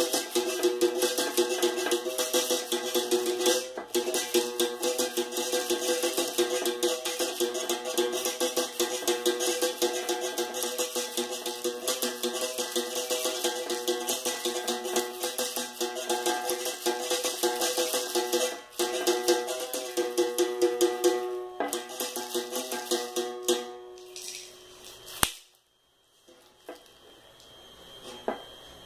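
Berimbau played with a stick: a fast run of strikes on the steel string sounding at two pitches, with the caxixi shaker in the striking hand rattling along. The playing stops about three quarters of the way through, leaving a few faint knocks and one sharp click.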